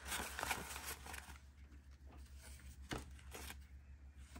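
Paper banknotes rustling as a small stack is handled and counted by hand, with a few sharp flicks and snaps about three seconds in. A steady low hum runs underneath.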